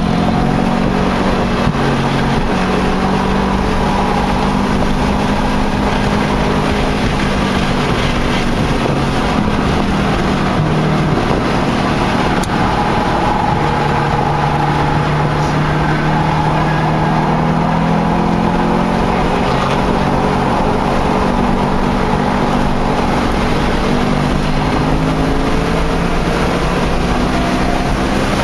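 Acura Integra four-cylinder engine heard from inside the car at track pace, over steady wind and road noise. The engine note holds for the first several seconds, changes pitch about ten seconds in, then climbs slowly through the second half as the revs rise.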